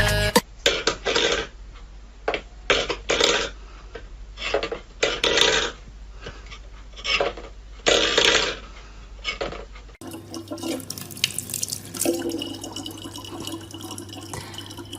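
Water splashing in short irregular bursts, then a steadier, quieter run of water with a low hum in the background.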